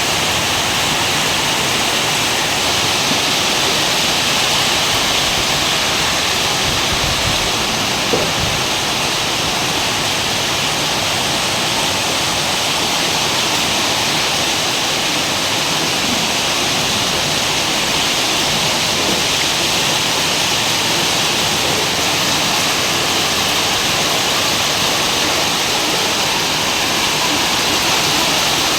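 Heavy tropical downpour falling steadily, a dense, even rush of rain.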